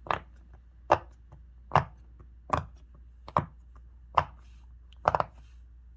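Bubbles of a silicone push-pop fidget toy pressed one at a time: about seven sharp pops, a little under one a second, with one doubled near the end.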